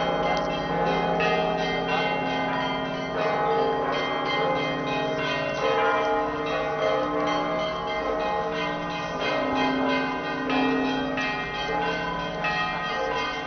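Church bells of an Orthodox cathedral ringing together in a continuous peal. Several bells of different pitches are struck again and again, their tones overlapping.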